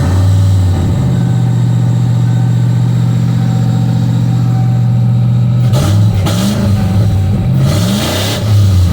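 Ford Bronco's small-block V8 idling steadily, then revved up and back down twice near the end.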